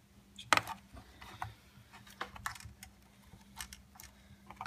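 Scattered plastic clicks and taps of RAM modules being handled and pressed into the motherboard's memory slots, with the sharpest click about half a second in.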